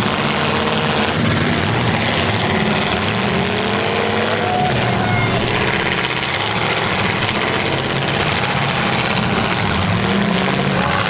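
Several demolition derby cars' engines running and revving together, a dense, steady din with pitches that rise and fall as drivers work the throttle.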